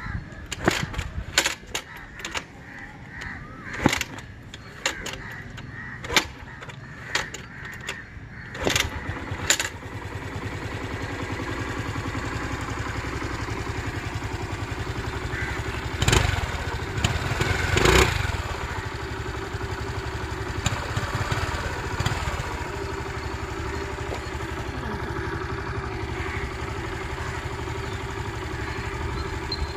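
A run of sharp clicks and knocks. Then the Suzuki Burgman Street scooter's single-cylinder engine starts about ten seconds in and runs steadily, with two brief louder bursts near the middle.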